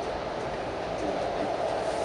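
Steady running noise of a commuter train at speed, heard from inside the passenger car: wheels on the rails and the car's body.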